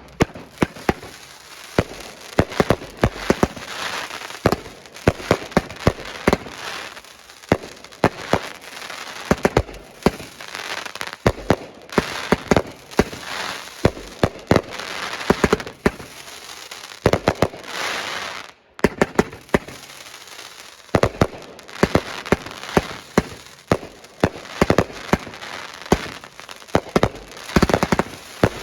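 Consumer fireworks going off in quick succession: many sharp bangs and pops over a running hiss and crackle, with a brief gap about two-thirds of the way through.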